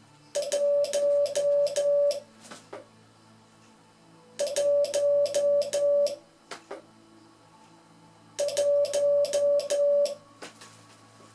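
Morse code sent by hand on a straight key: a steady mid-pitched sidetone beep keyed on and off, with the key's contact clicks at each stroke, spelling the digit 1 (di-da-da-da-da). The figure is sent three times, each group lasting about two seconds, with about two seconds of quiet between groups.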